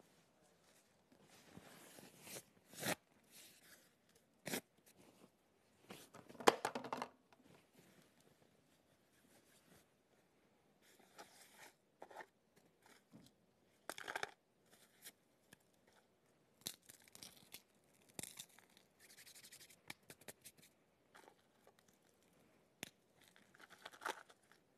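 Paper study notes being torn up by hand: a series of irregular rips, some quick and some drawn out, with short pauses between them and the loudest tearing a few seconds in.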